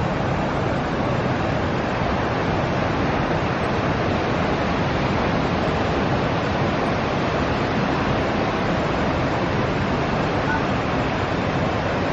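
Ocean surf on the shore, a steady, even rush.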